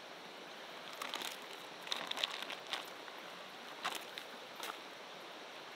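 Quiet outdoor ambience: a steady hiss with a few soft, short clicks and crackles scattered through the middle.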